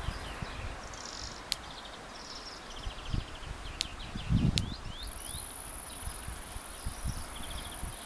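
Small birds chirping and twittering over and over, with a steady high-pitched insect buzz coming in about halfway through. Wind gusts buffet the microphone, loudest in the middle.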